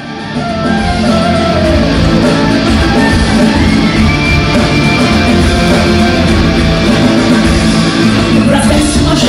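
Loud music with guitar and singing, played back over the theatre's sound system. It comes in suddenly at the start and then plays on at a steady level.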